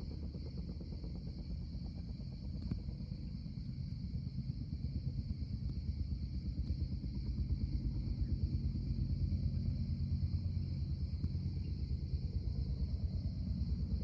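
A steady low rumble with a fast flutter in it, growing somewhat louder about five seconds in, under a steady high hiss.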